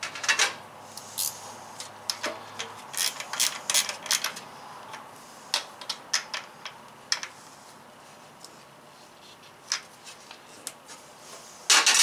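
Irregular small clicks, taps and light metallic knocks from hands fitting wire connectors onto a battery terminal inside an aluminium box. The loudest clatter comes at the very end.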